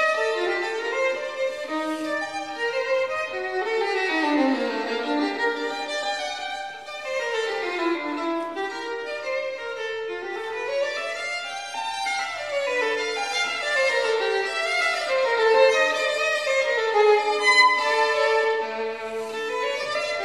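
Background music: a bowed violin playing fast scale runs that climb and fall.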